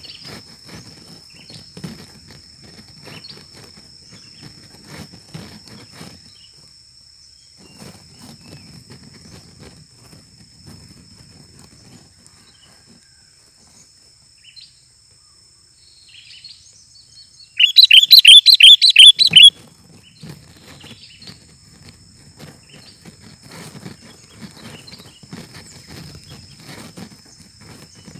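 Sooty-headed bulbul (kutilang) giving a loud, rapid burst of chattering calls lasting about two seconds, a little past the middle. A steady high-pitched drone and soft low rustling run underneath.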